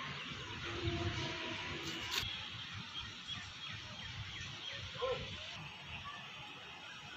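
Faint outdoor city ambience: small birds chirping again and again over a steady background hiss.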